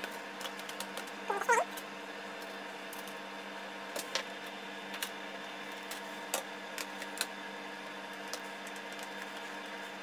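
Aluminium bottom case of a MacBook Pro being set back on the laptop and pressed into place: scattered light clicks and taps over a steady hum. About a second and a half in, a short wavering call rising in pitch is the loudest sound.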